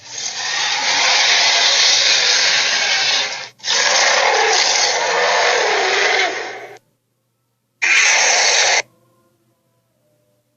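Cartoon dinosaur screech sound effect for Redclaw: three harsh, raspy screeches, two long ones of about three seconds each and a short one of about a second near the end.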